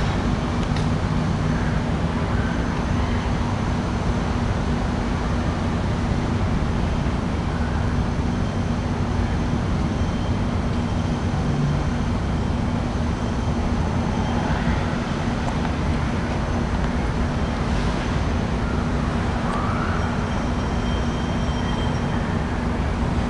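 Air conditioner unit running: a steady mechanical hum with fan rumble underneath.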